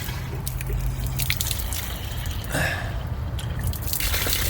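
Water trickling and dripping from a kitchen drain cleanout that has been filled with a hose and will not drain, because the line is clogged with grease.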